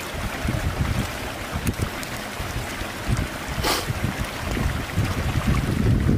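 Small wood fire crackling, with scattered pops and one brief louder hiss about three and a half seconds in, over a steady rumble of wind on the microphone.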